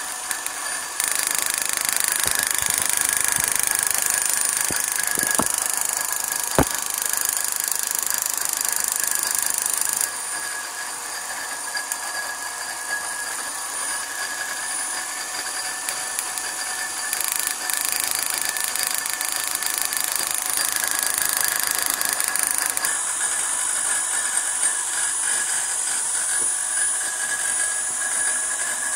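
High-voltage sparks from an EDIS4 ignition coil pack firing continuously across an adjustable test spark gap: a steady, rapid crackling buzz with a high whine in it. Its loudness shifts abruptly a few times, and a sharp snap stands out about six and a half seconds in.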